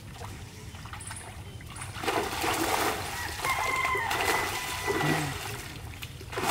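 Water splashing in uneven bursts as fish thrash inside a cast net being gathered in by hand in shallow water, starting about two seconds in.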